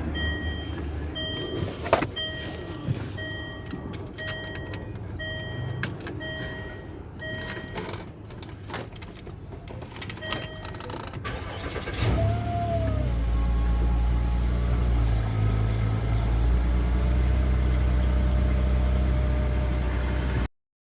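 A Range Rover's dashboard warning chime beeps steadily, about once a second, with a few clicks. About twelve seconds in, the engine cranks briefly, catches, and settles into a steady idle, until the sound cuts off just before the end.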